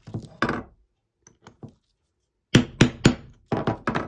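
Claw hammer tapping a grommet setting tool to set a metal grommet through a book cover: a few lighter knocks at the start, then a quick run of three sharp taps about two and a half seconds in and two more near the end.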